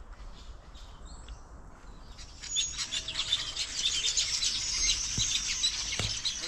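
A flock of small birds chirping and twittering together, a dense chatter of quick, high calls that sets in about two seconds in.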